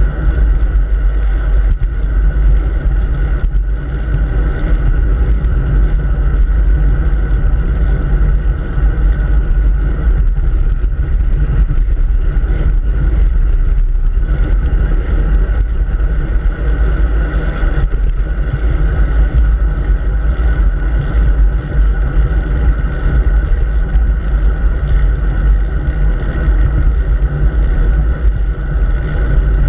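Steady wind rumble on a handlebar-mounted camera's microphone as a bicycle rides at speed, with tyre and road noise underneath.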